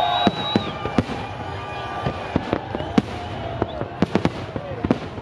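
Fireworks display: a rapid, irregular string of sharp bangs, several a second.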